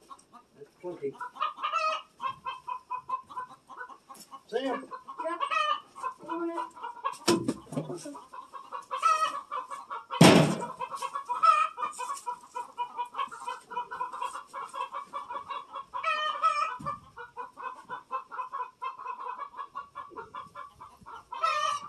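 Chickens clucking continuously in short repeated calls, with a loud knock about ten seconds in and a smaller one a few seconds before it.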